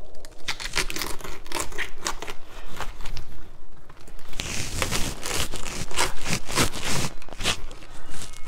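Kitchen knife cutting down into a raw head of green cabbage around the core: a run of short crisp crunching and tearing strokes as the blade goes through the tight leaves, with a longer cut about halfway through.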